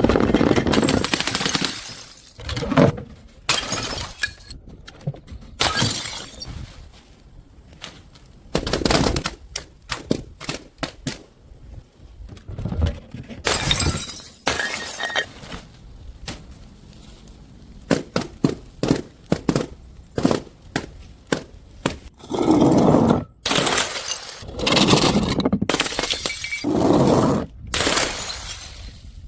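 Things breaking and being crushed again and again: runs of sharp cracks and crackles broken by longer crunching, shattering bursts, several of them loud near the end.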